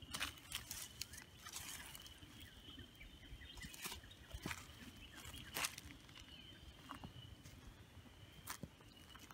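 Footsteps crunching through dry leaves and twigs on the woodland floor, an irregular series of soft crackles and snaps, over a faint steady high-pitched tone.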